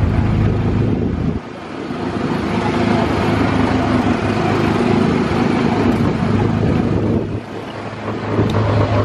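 Small engine of a track ride car running steadily as the car drives along, with wind buffeting the microphone. The low engine hum drops briefly twice, about one and a half seconds in and again near the end.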